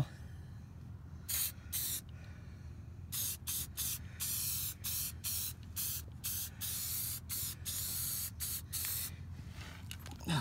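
Aerosol spray-paint can hissing in a long run of short bursts with a few slightly longer sprays, starting about a second in and stopping shortly before the end.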